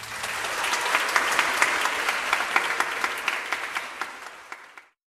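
Audience applauding: a dense patter of hand claps that builds over the first second, holds, then thins out and cuts off suddenly just before the end.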